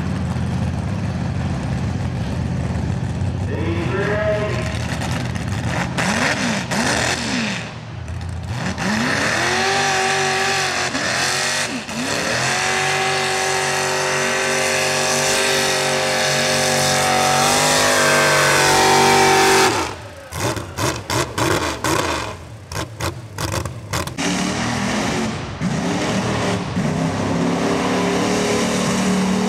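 Lifted mud-bog pickup trucks' engines revving hard while pushing through a deep mud pit, pitch rising and falling in repeated surges and then held high for several seconds. About two-thirds of the way in the sound drops off abruptly into a choppy stretch before another truck's engine runs steadily.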